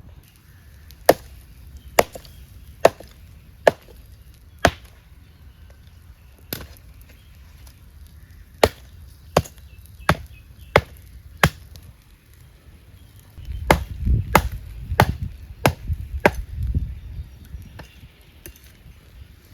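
Chopping with a blade: about eleven sharp single strokes, roughly one a second in two runs. These are followed by a few seconds of duller, rougher knocking.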